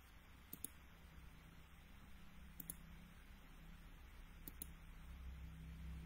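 Three pairs of faint, sharp computer mouse clicks about two seconds apart, over a quiet steady low hum.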